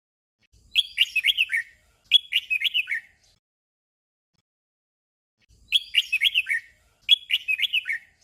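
Red-whiskered bulbul singing a short chirpy phrase twice in quick succession, then the same doubled phrase again after about two seconds of silence.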